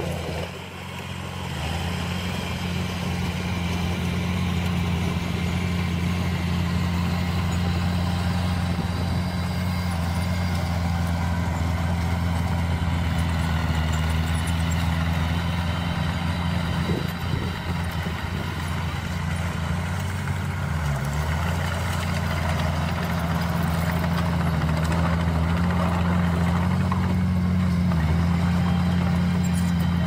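Heavy diesel engines running steadily: a Hyundai dump truck raising its bed to tip a load of soil, with a small crawler bulldozer running close by. The drone dips briefly about half a second in.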